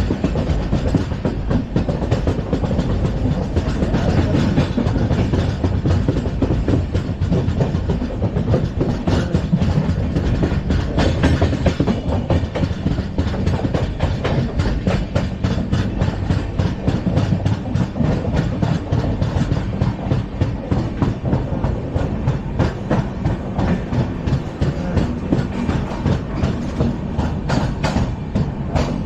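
LHB passenger coaches running at speed on the track: a steady rumble of wheels on rail with a fast, continuous clatter of clicks and rattles.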